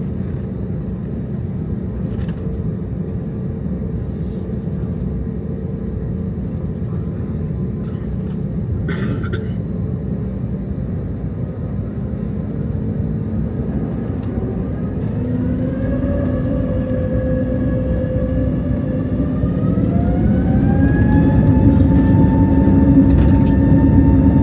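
Airbus A320neo jet engines, heard from inside the cabin. A steady rumble turns into a whine that rises in two steps, about fifteen and twenty seconds in, and grows louder as the engines spool up toward take-off thrust.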